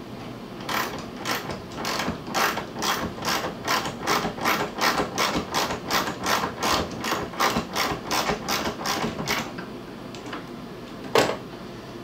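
Ratchet wrench clicking steadily, about three clicks a second, as it backs out the bolt on a refrigerator's center door hinge. A single louder knock near the end.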